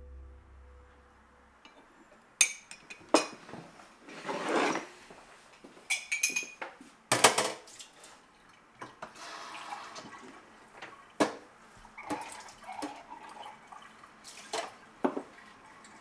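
Kitchen sounds of dishes being handled: a series of sharp clinks and knocks of crockery and cutlery, with short spells of running water in between.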